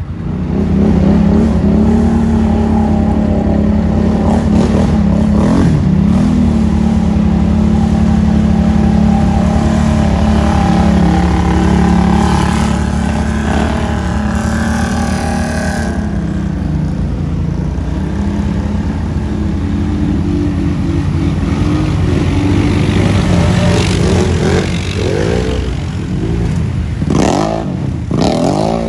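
ATV engines running under load as the four-wheelers drive through creek water, with water splashing. The engine note holds steady for the first half, then rises and falls with revving near the end.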